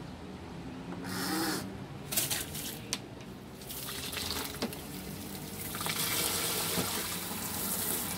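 Flush water running from the rim of a portable toilet into its bowl and splashing down into the drain opening, filling it to dissolve a septic treatment packet. The water starts about halfway through and grows stronger near the end, after a few sharp plastic clicks.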